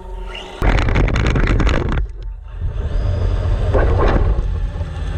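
Radio-controlled car driving over a dirt trail, heard through the camera mounted on it: a loud, rough rush of wind on the microphone and tyres on dirt. It comes in two bursts, with a short break about two seconds in.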